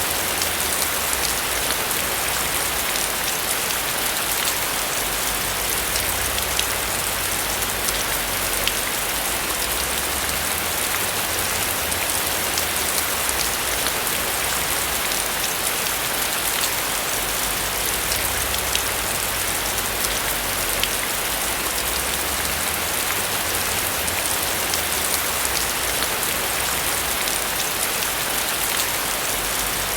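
Steady rain falling on a roof, many small drops ticking through a constant hiss.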